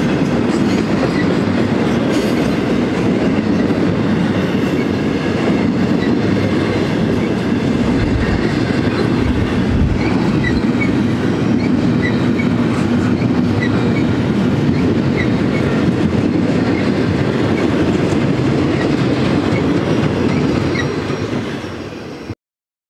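Double-stack intermodal container train's well cars rolling past, a steady rumble of steel wheels on rail with a clickety-clack. The sound fades near the end and then cuts off suddenly.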